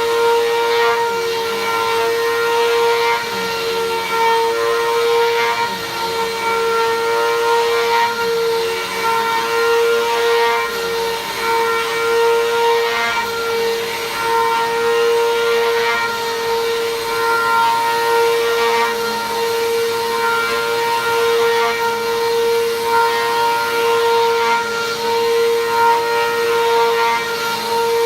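Vacuum cleaner running steadily while vacuuming a rug: a constant motor whine with a few higher steady tones above it.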